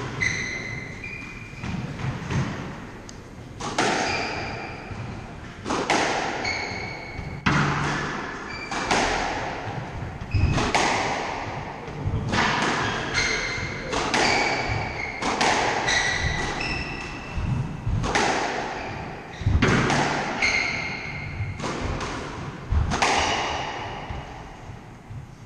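Squash rally: the ball cracks off rackets and walls about every second, each hit echoing around the court, with short squeaks from the players' shoes on the wooden floor. The hits stop shortly before the end.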